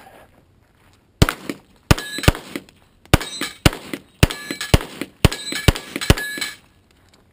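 Handgun fired in quick succession at steel plates: about ten shots, roughly two a second, starting just over a second in and ending about six seconds in. The struck steel rings between the shots.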